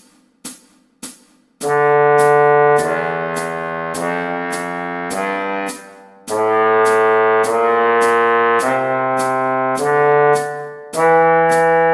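Trombone playing long held notes of a scale exercise over a metronome clicking about twice a second. The clicks count in alone for about the first second and a half before the trombone comes in.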